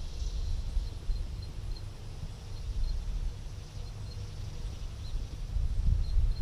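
Wind buffeting the microphone: an uneven low rumble that swells near the end. A faint, high chirping repeats steadily in the background.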